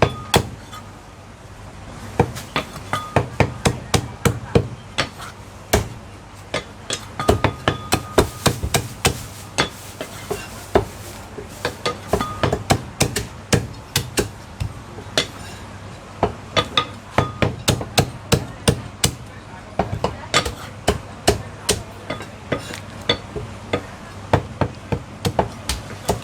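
Butcher's cleaver chopping roast meat on a wooden chopping block: quick, hard chops in irregular runs of several strokes a second, with a short pause about a second in.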